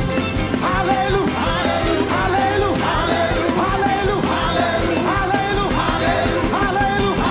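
Live gospel worship music: a band plays a steady beat under voices singing short, repeated phrases.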